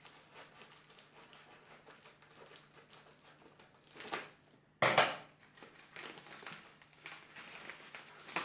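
Parcel packaging being opened by hand: quiet crinkling and rustling, with one loud, sudden tearing sound about five seconds in.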